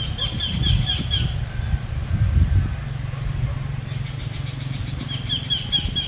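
A songbird singing a quick run of about six repeated notes, twice, over a steady low rumble.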